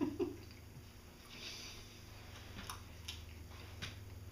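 Faint chewing of mini donuts, with a few soft mouth clicks, over a low steady hum.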